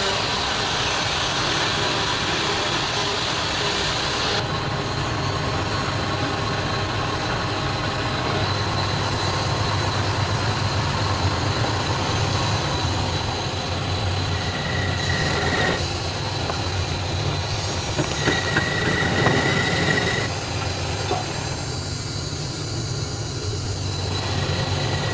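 Wood lathe running steadily with the turned wooden workpiece spinning while a hand-held pad is pressed against it. Two high squeals, each a second or two long, come in the second half.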